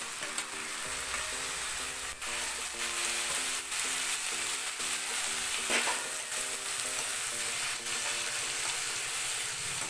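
Chopped tomatoes and onions sizzling in hot oil in a nonstick kadai. A steel ladle stirs them, scraping the pan and knocking against it a few times.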